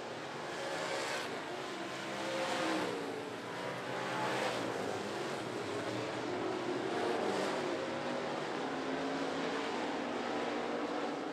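Dirt-track race cars and trucks running hard around the oval, their engines rising and falling in pitch. The sound swells about four times as cars pass close by.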